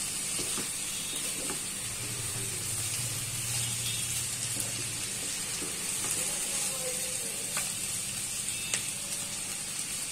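Potatoes, cauliflower and tomato frying and sizzling in oil in a pan while a spatula stirs them. A steady sizzle runs under a few light taps of the spatula against the pan.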